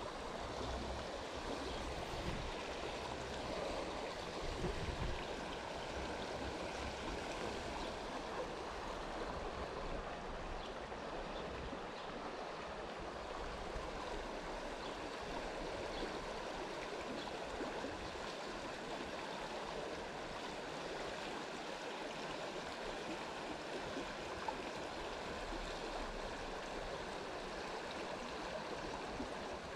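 Steady rushing of flowing water, like a stream or small river running, with a little low rumble in the first few seconds.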